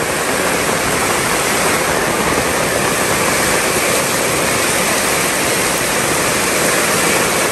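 Heavy rain pouring down, a loud, steady hiss.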